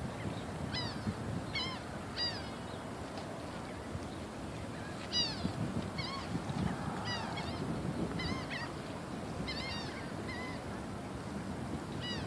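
Birds calling in short, nasal, honk-like notes, about a dozen scattered through, over a steady background noise.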